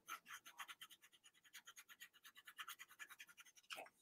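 Faint pen strokes scratching on sketchbook paper, quick and short, about eight a second, as the drawing is inked. One slightly louder stroke comes near the end.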